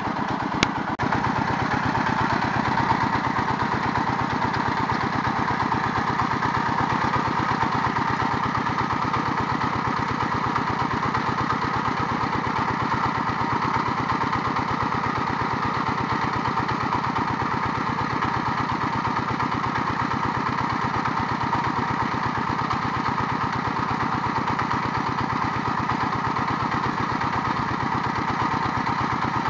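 The engine of a water-well drilling rig running steadily, with fast, even firing pulses.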